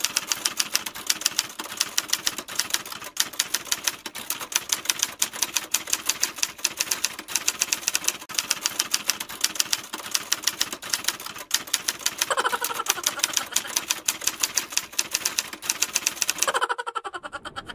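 Typing sound effect: rapid, clacking keystrokes at several per second, stopping shortly before the end.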